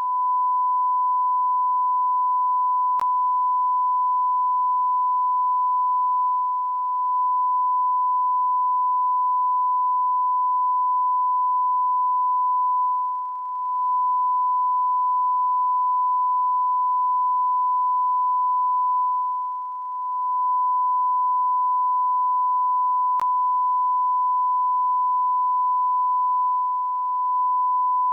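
Continuous electronic beep: a single pure, steady tone that holds without a break, dipping slightly in loudness for a moment about every six or seven seconds.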